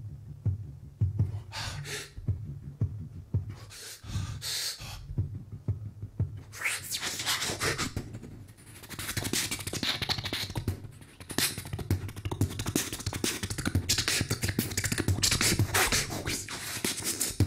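Beatboxing into a handheld microphone: a steady beat of deep bass-drum pulses, with a few short hissing bursts at first and, from about six seconds in, dense hissing cymbal-like sounds and clicks layered over it.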